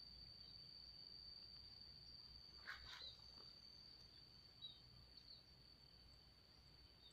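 Near silence, with an insect's steady, high-pitched trill that does not change, typical of a cricket. A brief, sharper sound stands out about three seconds in.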